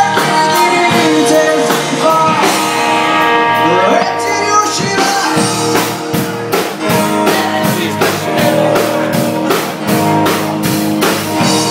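A live rock band playing: electric and acoustic guitars, bass and drum kit, with a singer's voice over sustained guitar chords. The drum hits become denser and more regular about halfway through.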